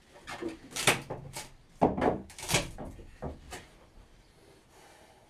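A quick run of knocks, clatters and scrapes for about three and a half seconds, loudest about a second and two seconds in, then dying away.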